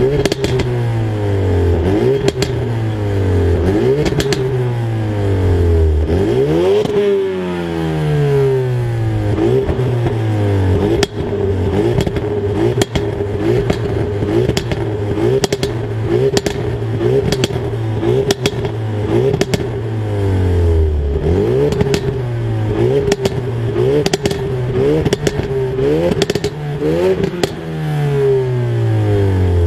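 Ford Focus RS Mk3's 2.3-litre turbocharged four-cylinder, revved while standing still through a Scorpion aftermarket exhaust. The throttle is blipped over and over, so the pitch rises and falls every second or two, with one longer rev. Sharp crackles and pops come on the overrun.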